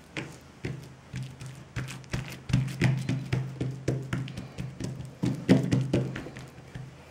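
Fingertips pressing and patting a thin round of külçe dough out on a wooden table: a quick run of soft taps and thuds, about three a second, loudest in the middle, with a low steady hum underneath.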